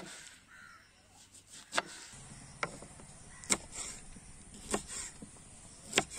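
Kitchen knife chopping vegetables on a wooden chopping board, first through red onion, then dicing green capsicum. There are six separate sharp knocks of the blade striking the board, about one a second.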